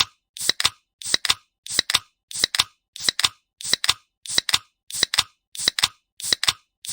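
Aluminium Coke can being opened: the tab snaps twice in quick succession with a short fizz. The sound repeats in a tight loop about every two-thirds of a second.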